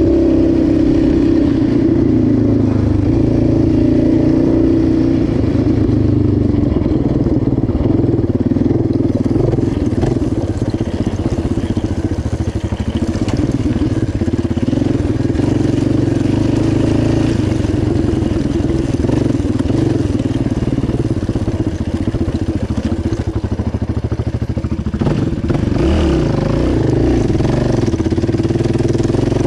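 Yamaha Raptor 700 ATV's single-cylinder four-stroke engine running under way, its pitch wavering with the throttle. Near the end the revs dip and climb again.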